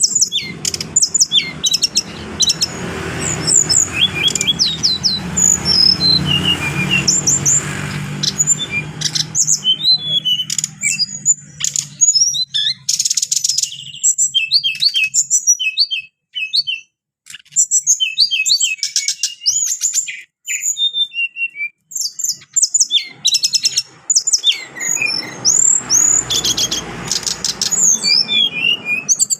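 Brown-chested jungle flycatcher singing: fast runs of short, clear, high whistled notes and chirps, broken by brief pauses. A low rumble sits under the song for the first third and again near the end.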